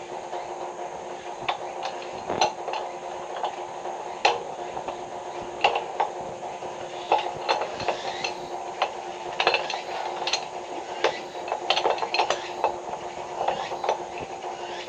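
Irregular clinks and knocks of hard tools and parts being handled during a water-pipe leak repair, several a second at times, over a steady hum.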